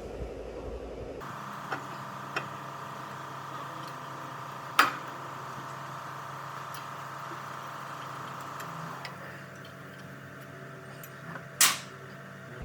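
Metal clinks and knocks of brake parts being handled as a new coated brake rotor is fitted, over a steady hum. Two light clicks come early, then two much louder single knocks, one midway and one near the end.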